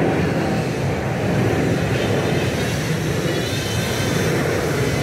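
ARRIS Chameleon 220 five-inch racing quad's 2306 brushless motors and props buzzing steadily in flight at low throttle. A higher whine that wavers in pitch with the throttle comes in about three seconds in.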